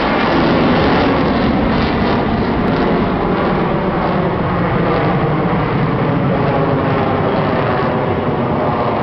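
F-16 fighter jet flying low overhead: loud, steady jet noise that swells to its peak about a second in and stays strong as the jet passes.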